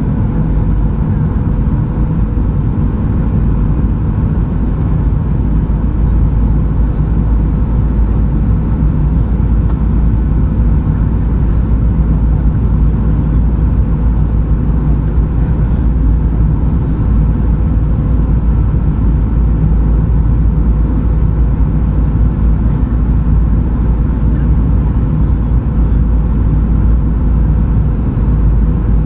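Steady cabin noise of a Boeing 737-800 in flight on approach: a low, even rumble of engines and airflow with a steady hum running through it.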